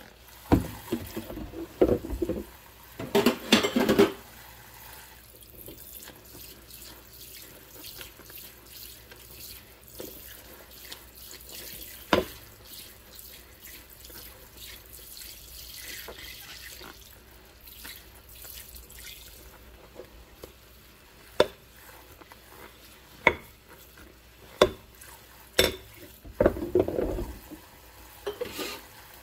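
Dishwashing in a stainless-steel sink full of suds: a tap runs steadily while rubber-gloved hands scrub a ceramic plate with a mesh scrubber. There is loud splashing in the first few seconds and again near the end, and a few sharp clicks in between.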